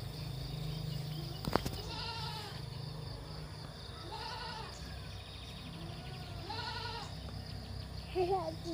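A goat bleating three times, each bleat a wavering call of about half a second, roughly two seconds apart. A single knock comes about a second and a half in.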